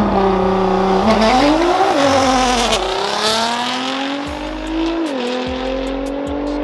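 Cars launching off a drag strip start line and accelerating away hard. The engine note is held steady for about the first second, then climbs and drops back at gear shifts about two and three seconds in and again near five seconds.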